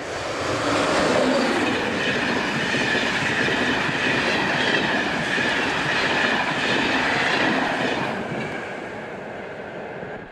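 Express passenger train passing at speed on the rails, a loud steady rush of wheel and track noise. It builds in the first second and eases off near the end.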